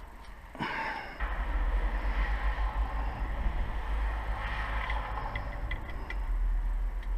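Rumbling handling noise from a chest-worn camera as the wearer leans and moves over a workbench, with a brief scrape just under a second in and a few light clicks of small parts being handled around the middle.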